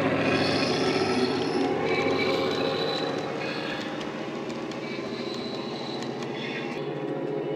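Class 68 diesel sound from a Coastal DCC sound file, playing through an EM2 speaker in a Dapol Class 68 model locomotive: a steady, deep engine drone that fades as the loco and its wagons pass and draw away. Brief high squeals, from wheels on the curved track, come and go over it.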